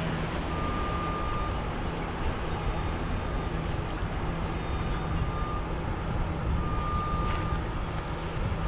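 Motorboat engines running steadily as boats pass through the inlet, with wind buffeting the microphone and the wash of waves. A thin high tone sounds briefly a few times.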